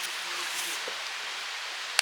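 Steady sizzling hiss of yakitori grilling over a camp fire, with one sharp click near the end.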